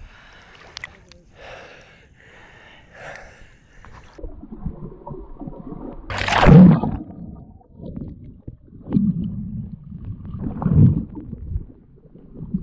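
Spring water sloshing against a waterproof action camera at the surface, then a loud rush of water about six seconds in as it goes under, followed by muffled underwater rumbling.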